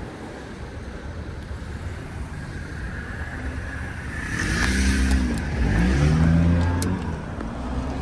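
Car on the road: steady low engine and road rumble. About halfway through, an engine note rises and falls twice and grows louder, as a vehicle accelerates or passes close by.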